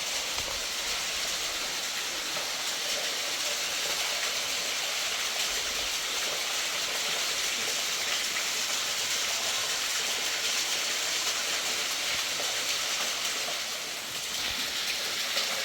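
Steady rush of flowing river water, an even hiss with no let-up that dips slightly near the end.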